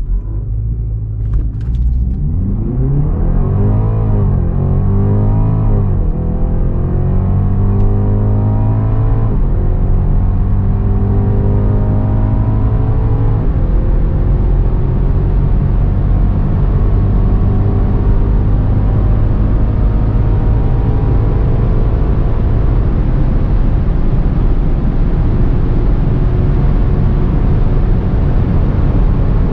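BMW 330e xDrive Touring plug-in hybrid's 2.0-litre turbo four-cylinder petrol engine at full-throttle acceleration from a standstill, heard from inside the cabin. Its pitch climbs through each gear and drops at each upshift of the 8-speed automatic. The shifts come quickly at first and further apart later, while a steady rush of noise grows at high speed.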